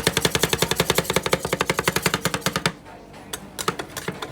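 Metal spatulas chopping rapidly on the steel cold plate of an ice cream roll stand, about eight strikes a second, as red dragon fruit is chopped into the cream base. A little under three seconds in, the chopping stops and only scattered taps follow.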